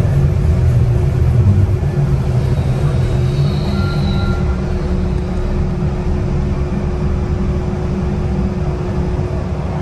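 Cabin noise inside a moving city transit vehicle: a steady low rumble with a constant hum, and a brief faint whine about three to four seconds in.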